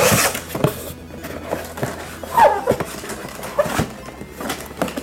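Cardboard box flaps being pulled open by hand: scraping, rustling and light knocks of cardboard, over background music.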